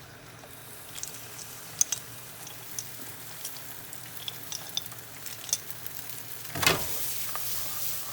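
Shrimp frying in hot oil in a pan, a steady sizzle with scattered clicks of a utensil stirring against the pan. There is one louder burst about six and a half seconds in.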